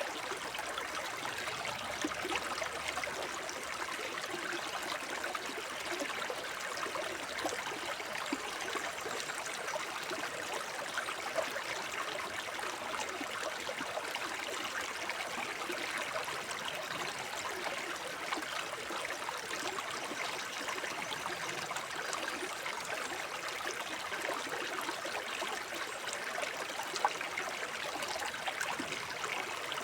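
Shallow forest brook babbling and trickling steadily over stones, a constant dense splashing with small drips and plinks, and a couple of slightly louder splashes.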